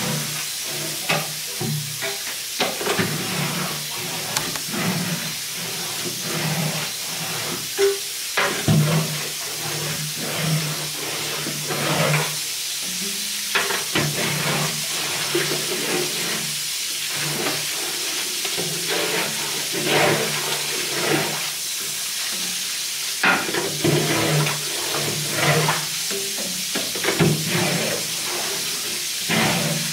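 A long-handled scraper scrapes and knocks against the steel floor and racks inside a cabinet smoker's cook chamber, in repeated strokes. Under it runs a steady hiss of water from a hose in the chamber.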